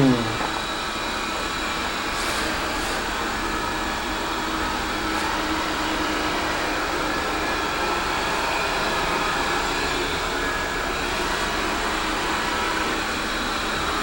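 Steady mechanical whirring hiss, like a fan or air-conditioning unit running, unchanging throughout.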